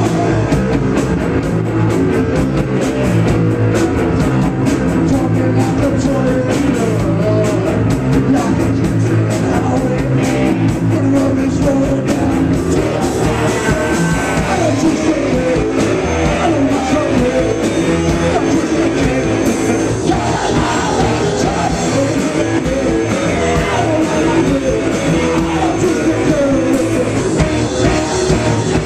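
Live punk rock band playing loud: electric guitars and a drum kit under a male singer on a microphone.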